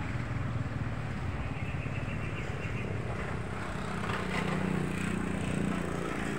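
Road traffic: a steady low engine rumble from passing vehicles. A motorbike engine grows louder about four seconds in as it passes.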